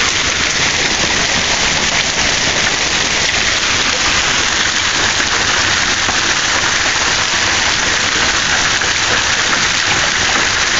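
Hail and heavy rain pelting down in a dense, steady hiss of countless small impacts, with no let-up.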